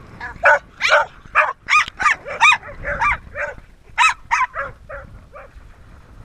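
Border collie-type dog barking excitedly, about a dozen high, sharp barks in quick succession over some five seconds.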